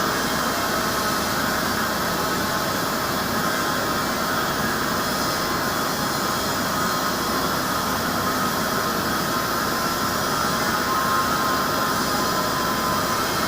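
Hartford CNC milling machine running through a 2D milling job: a steady, even machine whir with no pauses or distinct knocks.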